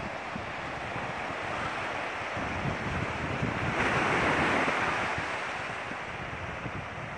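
Surf washing onto a sandy beach, a steady rush that swells about four seconds in and then ebbs, with wind buffeting the microphone in uneven low gusts.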